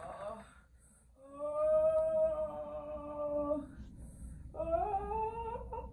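A woman in labour moaning in long, held hums through a contraction: one steady moan of about two and a half seconds starting a second in, then another near the end that rises in pitch.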